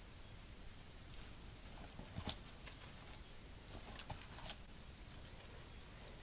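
Faint, scattered light clicks and taps over a quiet background, a few of them about two seconds in and a few more about four seconds in.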